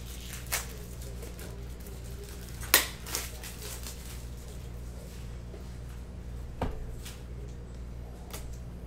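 Scattered clicks and knocks from objects being handled and set down on a desk, over a steady low hum. The loudest is one sharp click nearly three seconds in; a duller knock comes about two-thirds of the way through.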